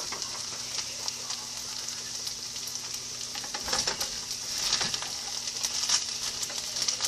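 Food sizzling in a frying pan: a steady hiss with scattered crackles, a few louder pops or stirring scrapes about halfway through.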